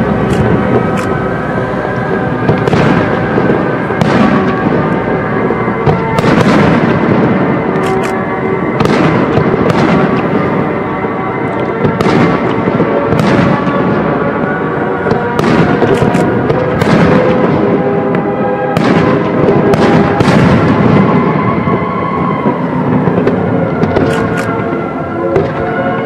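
Aerial fireworks shells bursting one after another, a bang every second or so, over music with sustained held notes.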